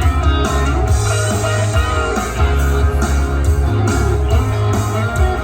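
Upbeat pop-rock backing music with electric guitar, a heavy bass line and a steady beat, playing between sung lines of the song.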